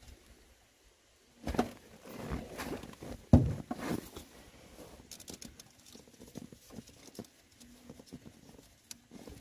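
Hands working among the wiring and plastic connectors under a van's dashboard: rustling and a few sharp knocks and clicks, the loudest a third of the way in, then faint scattered ticks.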